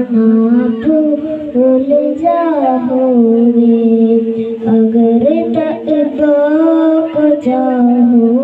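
A boy singing an Urdu naat, a devotional song in praise of the Prophet, unaccompanied into a microphone. He holds long notes that waver and glide ornamentally from one pitch to the next.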